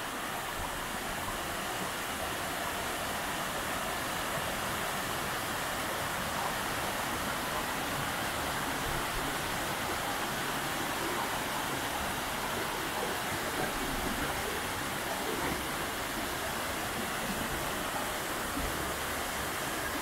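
Waterfall cascading over a rock step into a pool: a steady, unbroken rush of falling water.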